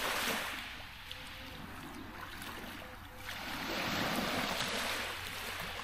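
Small waves washing onto a pebble beach on a calm sea, the hissing wash swelling twice, about three and a half seconds apart.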